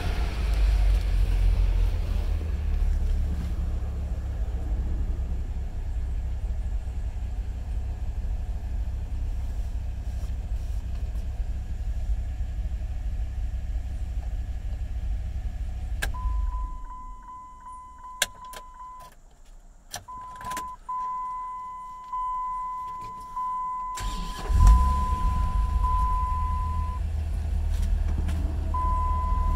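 Ram SRT-10's 8.3-litre V10 idling steadily, then switched off with a click about 16 seconds in, leaving a steady electronic warning chime and a few clicks. About 24 seconds in the V10 is restarted and catches with a loud burst, then settles back to a steady idle.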